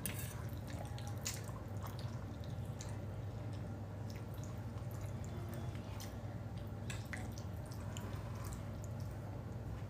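Wet chewing and mouth clicks of a person eating spaghetti, as scattered sharp smacks over a steady low hum.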